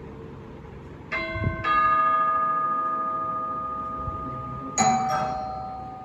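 A bell chime rings: two struck tones about half a second apart, then a third stroke about three seconds later. Each rings on and slowly fades.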